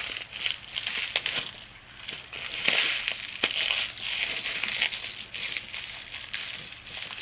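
Plastic packing material, such as bubble wrap, crinkling and rustling in irregular handfuls as it is pulled off and handled, with a few sharp clicks.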